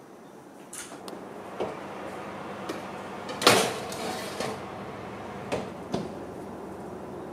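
Metal baking tray of bread dough slid onto an oven rack with a loud clatter about halfway through, then the oven door shut with a couple of knocks, over a steady background hiss.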